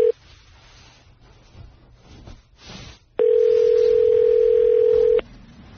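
Telephone ringback tone of an outgoing call ringing unanswered: a steady single-pitch tone ends just as the sound begins, and another two-second tone sounds about three seconds in.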